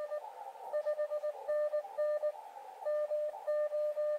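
Elecraft KX2 transceiver's Morse code sidetone playing back a stored contest-exchange message, with power set to zero so nothing is transmitted: a steady tone keyed in dots and dashes, with receiver hiss between the elements.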